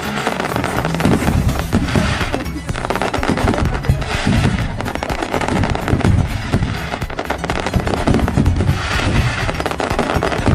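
New Year fireworks going off in quick succession, a dense run of bangs and crackling with no break, with music underneath.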